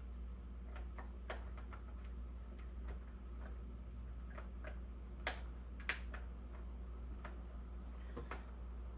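Scattered light clicks and taps of handling, two sharper clicks about five and six seconds in, over a low steady hum; the chainsaw is not running.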